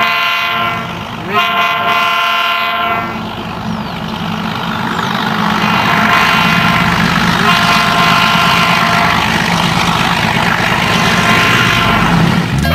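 Diesel locomotive sounding two blasts on its multi-tone horn in the first few seconds. Its engine then runs with a steady low rumble that grows louder as it comes on, with further long high tones over it.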